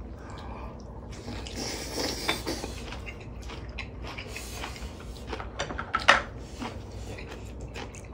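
Close-up eating sounds: chewing a mouthful of braised kimchi, with small clicks of chopsticks and spoons against bowls. One sharper click about six seconds in.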